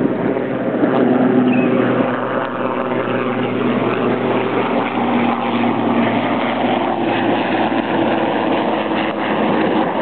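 Steady engine drone with a low hum that wavers slightly in pitch.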